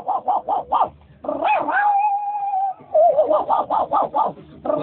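Rapid dog-like yipping, about six yips a second, broken in the middle by one long held whine, then more yipping.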